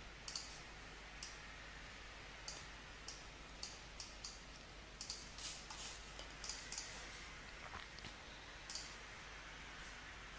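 Faint computer mouse clicking, a dozen or so single clicks at uneven intervals, over a low steady hum.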